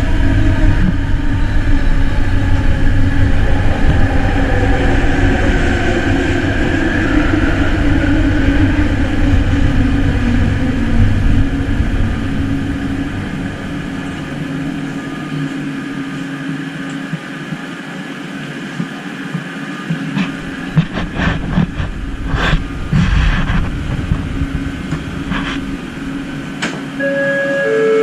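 Driverless metro train running and braking into a station: a whine from its electric drive slides down in pitch over loud rumbling from the wheels, and the rumble dies away as it stops. Scattered clicks and knocks follow, and a short beep tone sounds near the end.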